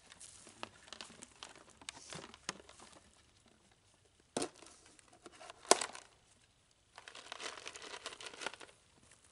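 Footsteps crunching through dry leaf litter and a plastic bucket lid being pried off, with two sharp snaps in the middle, the second the loudest, then a stretch of crinkling rustle.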